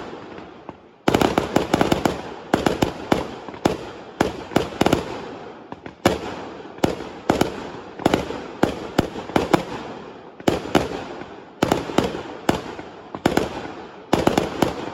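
Fireworks display: after a brief lull, a rapid string of loud bangs resumes about a second in, coming in quick clusters, each bang followed by an echoing tail.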